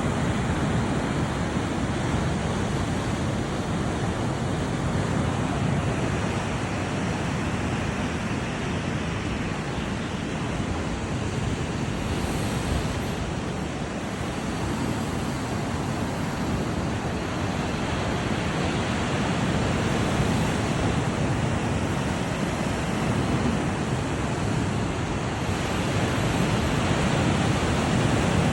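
Black Sea waves washing onto the shore in a steady surge, swelling and easing slowly, with some wind on the microphone.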